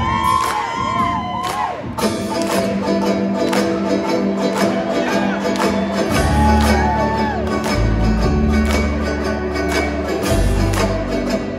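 Live folk band playing: banjo, acoustic guitar and cello in a driving rhythm, with crowd cheering over the first couple of seconds. A deep bass line comes in about six seconds in.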